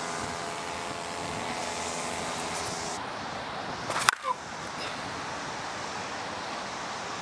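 A Dudley Lightning Balance slow-pitch softball bat hits a softball once, about four seconds in, with a single sharp crack. The bat is new and still breaking in; it has opened up after its first 60-odd swings.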